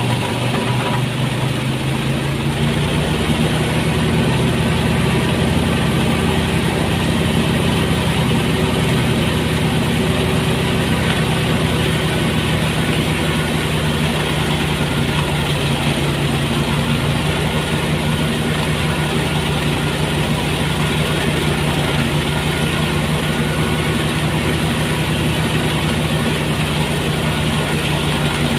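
Engine of a motorised rice threshing machine running steadily, a continuous drone.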